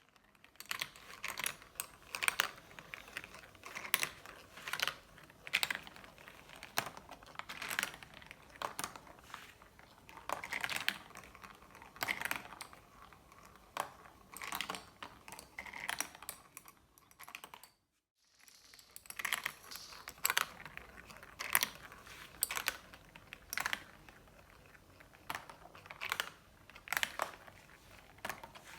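Marbles rolling and clacking down a marble run track: a continuous rolling rattle broken by frequent sharp clicks as they strike the track and each other. The sound cuts out for a moment about two-thirds of the way through, then starts again.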